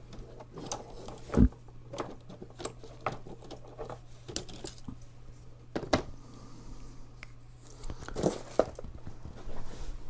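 Scattered small clicks, taps and handling noises as a piece of lead wire is cut from a roll with hand cutters and the tool is set down on the counter, with a dull thump about a second and a half in. A steady low hum runs underneath.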